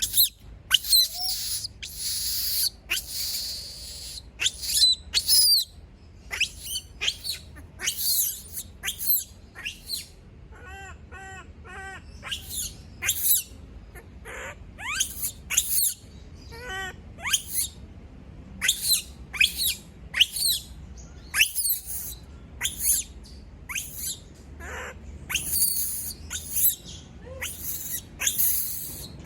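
Pet monkey screaming over and over when left alone: a long run of short, shrill calls, many sliding sharply up or down in pitch, with a brief string of quick chirps near the middle.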